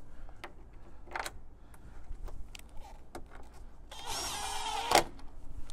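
A power drill with a T40 Torx bit runs for about a second, driving a hard-top screw into the Jeep Wrangler's windshield frame, and stops with a sharp click. A few light taps of handled hardware come before it.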